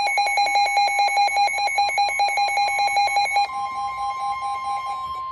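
Weather alert radio sounding its alarm: a fast electronic beeping, joined about three and a half seconds in by a steady high tone, the NOAA Weather Radio warning alarm tone that signals a warning is about to be read. The beeping fades out shortly before the end while the steady tone holds.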